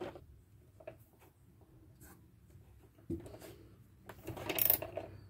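Socket wrench working the bolts that hold the boat's new steering helm, with scattered metal clicks and rubbing, one sharper knock about three seconds in and a quick run of clicks near the end as the bolts are tightened.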